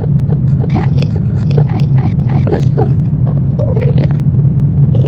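Horror ambience: a steady low rumbling drone, with scattered short vocal sounds and faint clicks over it.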